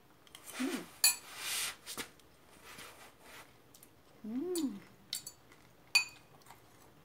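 A metal fork clinks sharply on a ceramic salad bowl twice, about a second in and near the end, while a person eats a leafy arugula salad. Between the clinks there is chewing, and twice a short closed-mouth hum that rises and falls.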